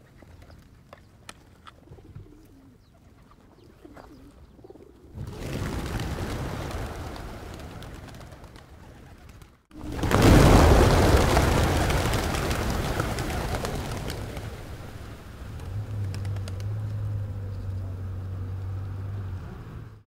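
Rock pigeons cooing, with a dense rush of many wings flapping. The rush swells suddenly about five seconds in, breaks off briefly, then returns louder about ten seconds in and slowly fades. A low steady hum joins near the end.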